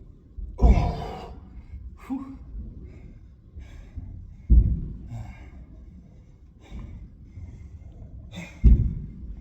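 A person exercising breathes hard through repetitions. A forceful exhale with a low thud comes about every four seconds, three times, with smaller breaths in between.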